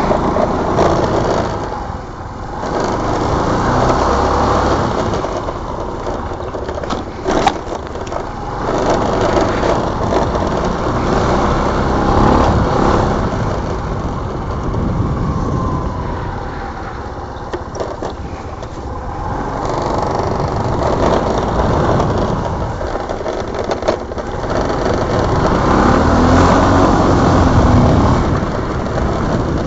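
Suzuki AN150 scooter's 150cc single-cylinder four-stroke engine running at speed on the move, under a heavy rush of wind on the microphone. The sound swells and eases several times as the scooter accelerates and backs off.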